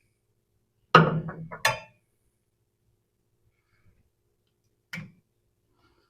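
A clatter of sharp knocks about a second in, with a second strike right after, then one fainter click near five seconds: parts being handled and set down while fitting rear brake lines on an axle.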